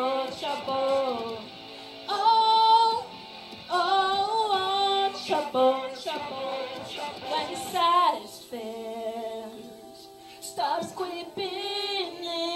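A woman singing into a handheld microphone, holding long notes with vibrato; the singing drops off for a couple of seconds a little past the middle, then returns.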